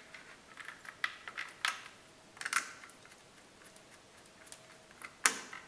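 A few light plastic clicks and taps of electrical wire being fitted into WAGO connectors, with the sharpest click near the end.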